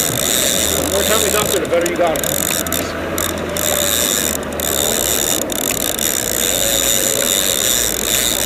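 Fishing reel ratcheting steadily, the clicker of a trolling reel as a hooked fish pulls on the bent rod in its holder, over the low hum of the boat's engine.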